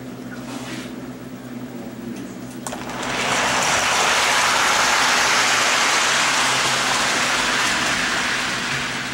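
O-gauge toy electric train running on its track, a loud even rolling rush that comes up about three seconds in and eases off near the end, over a steady electric hum.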